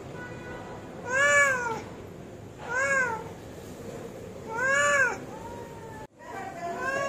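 A hungry cat meowing over and over: three drawn-out meows, each rising then falling in pitch, roughly every one and a half to two seconds, and a fourth, rougher one beginning near the end.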